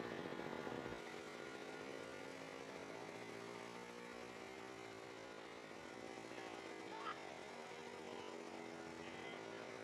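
Faint steady mechanical hum, a little louder for the first second, with one brief high chirp about seven seconds in.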